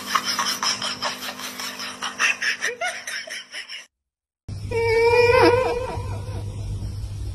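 Rapid, rhythmic laughter for about four seconds. After a brief silence comes a wavering, pitched vocal call with a steady low hum beneath it.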